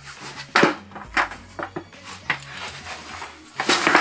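Skateboard knocking and clacking on a carpeted floor as it is ridden and popped for tricks: a few sharp knocks spaced apart, then a quick run of louder clacks near the end.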